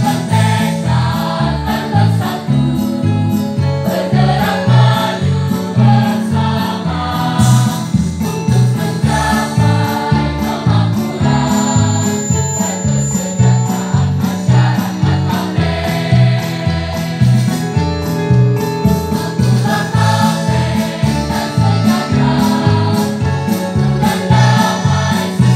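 A mixed high-school choir singing a march in unison and harmony, accompanied by an electronic keyboard playing a steady, evenly pulsing bass beat.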